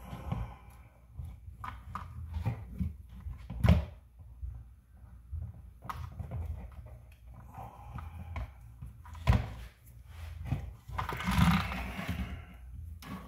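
Scattered clicks and knocks of small parts and tools being handled on an RC car, with a sharp knock a little under four seconds in, another a little past nine seconds, and a rustling scrape around eleven to twelve seconds.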